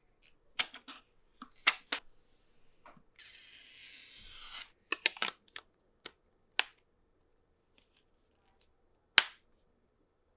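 Sharp plastic clicks and taps from a phone case and screen protector being handled and fitted. A steady hiss lasting about a second and a half comes about three seconds in, and the loudest click comes near the end.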